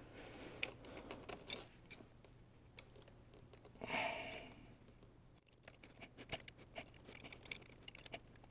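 Faint small clicks and light rustling as a bolt is started by hand to hold the brake booster vacuum pump and its bracket. There is a short louder rasp about four seconds in and a run of quick light ticks in the last few seconds.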